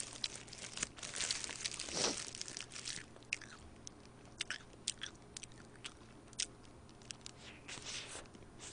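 Close-miked biting and chewing of a Lotteria bulgalbi burger. Louder bites come in the first few seconds, then chewing with scattered sharp mouth clicks.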